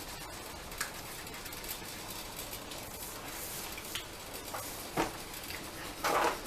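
Felt-tip markers rubbing on paper: a steady soft scratching, with a few light taps and a louder scuff near the end.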